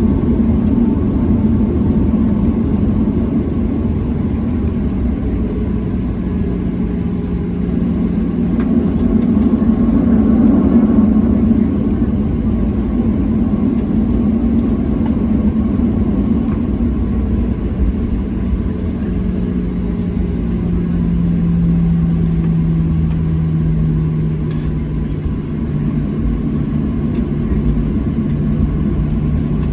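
Inside the cabin of a Boeing 737-700 taxiing: its CFM56-7B jet engines running steadily at low power, heard as a deep rumble with a low hum that drops slightly in pitch about two thirds of the way through.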